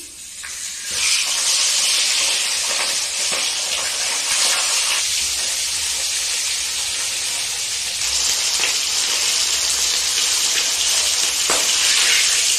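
Rohu fish head frying in hot oil in a steel kadai: a loud, steady sizzle that swells up within the first second after the head goes into the oil.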